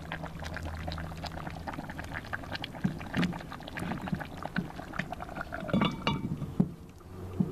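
Oxtail stew simmering in a cast-iron potjie over coals, bubbling with many small pops. About six seconds in, the heavy cast-iron lid clinks and knocks as it is set on the pot.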